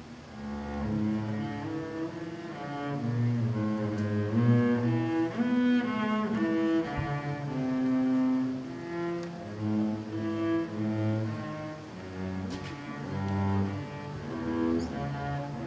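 Double bass bowed (arco), playing a melody of low notes that change every half second to a second.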